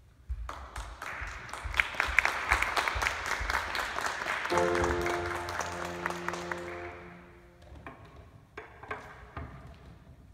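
Audience applause, quick claps that build and then fade out after about seven seconds. About halfway through, a piano chord rings out and dies away under the clapping. A few faint knocks follow near the end.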